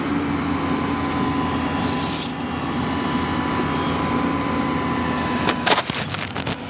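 A machine engine running steadily, with a short hiss about two seconds in and a few sharp clacks near the end.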